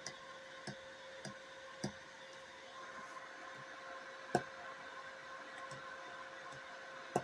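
Faint steady hum of a bench power supply's cooling fan, with a few light clicks and taps; the sharpest tap comes about four seconds in.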